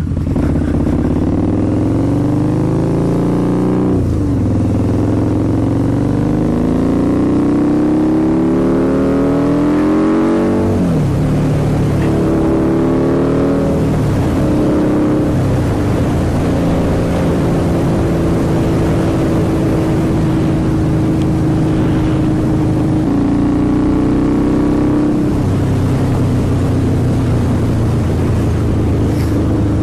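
Harley-Davidson V-Rod's V-twin through non-baffled TAB Performance slip-on mufflers, loud, pulling up through the gears: the engine note climbs and drops back at each shift about three times in the first fifteen seconds, then holds steady while cruising.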